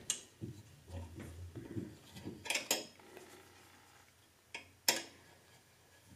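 A handful of sharp metal clicks and clinks of a hand tool working on a bandsaw's upper blade guide as its rear bearing is tightened down, with soft handling rustle between them. The loudest click comes about five seconds in.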